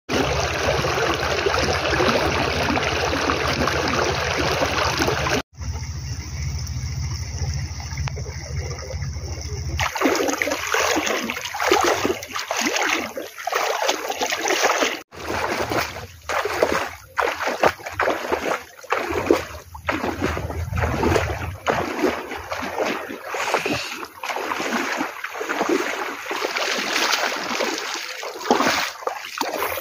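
Muddy floodwater rushing steadily with a deep rumble for about ten seconds. Then comes a long series of irregular splashes and sloshes of someone wading through shallow floodwater.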